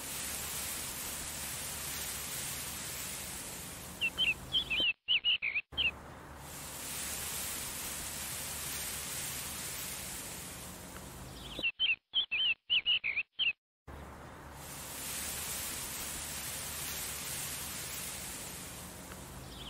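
Steady outdoor hiss, broken twice by a short run of quick, high bird chirps, about four seconds in and again about twelve seconds in; the hiss drops out while the chirps sound.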